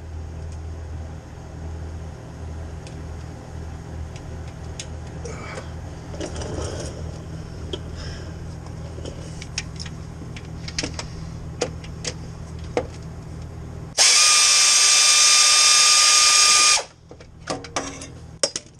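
Scattered clinks of tools and bolts over a steady low hum. About fourteen seconds in, a pneumatic air ratchet runs in one loud burst of nearly three seconds with a steady whine, then cuts off, followed by more clinks.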